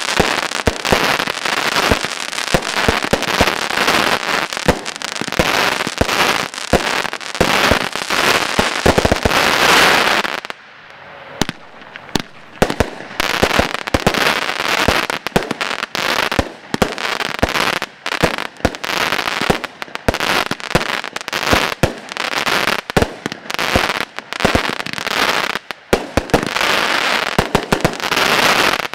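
Broekhoff Tornado Superset consumer firework cakes firing a rapid string of shots that burst overhead. The shots come thick and fast for about ten seconds, pause briefly, then carry on more spaced out.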